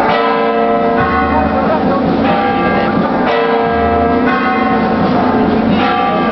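Church bells ringing in a peal, struck again about every second, their tones overlapping. A crowd murmurs underneath.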